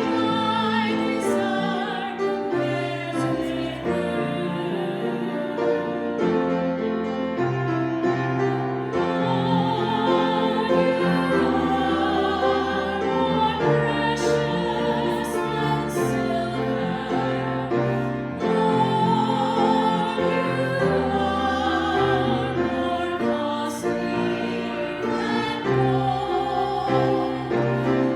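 An offertory hymn sung slowly with vibrato over an instrumental accompaniment, sustained notes changing every second or two.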